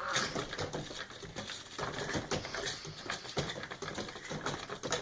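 An animal growling low, mixed with irregular clicks and scuffles; a rising drawn-out call trails off just at the start.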